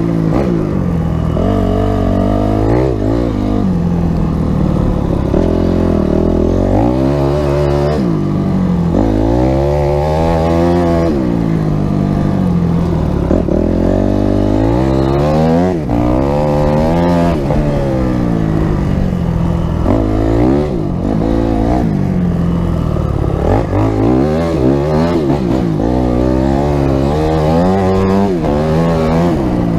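Honda CRF250X dirt bike's single-cylinder four-stroke engine revving up and down over and over as the rider works the throttle through the snow, the pitch climbing and dropping every second or few.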